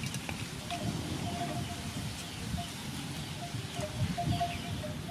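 Outdoor ambience with an animal calling in short, repeated notes at one steady pitch, over a low rumbling background.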